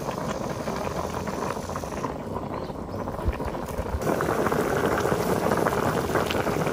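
Water boiling in a pot: a steady rushing noise that gets louder about four seconds in.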